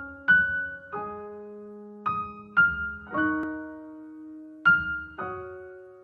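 Slow, gentle piano tune: single notes and small chords struck every half second to a second and left to ring and fade.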